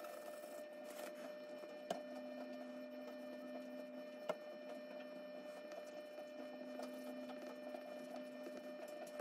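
Charcoal pencil scratching over drawing paper in short, uneven strokes, faint, under a steady electrical hum, with two sharper ticks about two and four seconds in.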